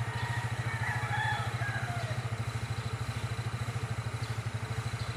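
An engine idling steadily nearby, with an even low throb.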